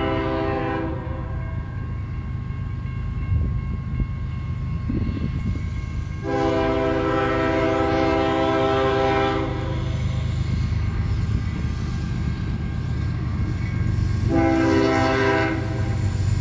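Diesel locomotive's air horn sounding several notes at once as it approaches a grade crossing: the end of one long blast, a second long blast about six seconds in, and a shorter blast near the end, the long-long-short pattern of the crossing signal. A steady low rumble of the train runs underneath.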